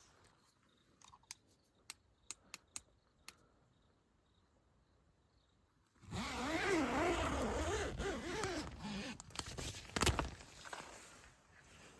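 A zipper being pulled in long strokes, loud for about three seconds, after a few light clicks. One sharp knock follows.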